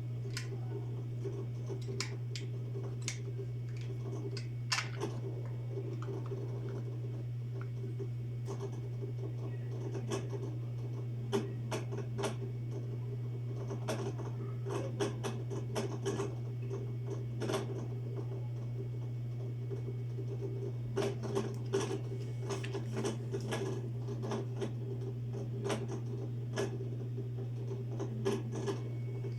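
A steady low electrical hum, with irregular small clicks and scratches over it.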